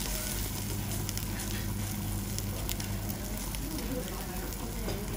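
Beef pieces sizzling on a wire-mesh grill over live charcoal, with fat crackling and popping in scattered ticks over a steady hiss. A steady low hum runs underneath.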